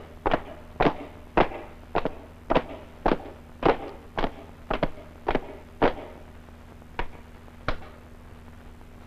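Boots of a squad of soldiers marching in step, a sharp stamp about twice a second. Near the end the stamps space out and stop.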